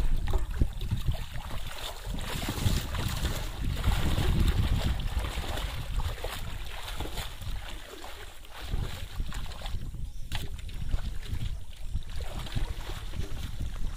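Wind buffeting the microphone, with water sloshing and splashing as a person wades through shallow pond water.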